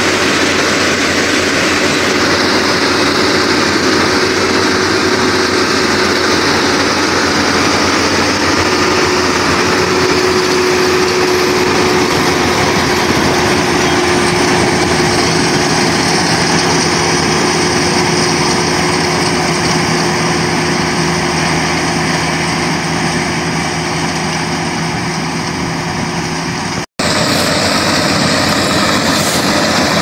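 Full-feed combine harvester running under load as it cuts and threshes rice paddy: a loud, steady engine and machinery drone with a constant hum in it. The sound cuts out for an instant near the end.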